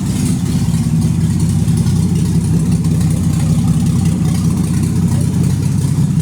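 Tornado 380 straight-six engine idling steadily, a loud, even low running note with no revving.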